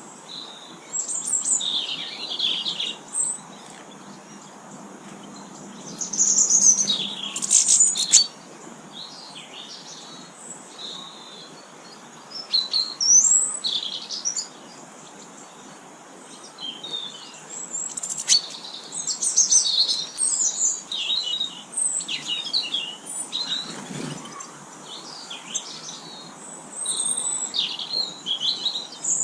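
Small garden birds chirping and calling in short bursts of high chirps and trills, with quieter pauses between.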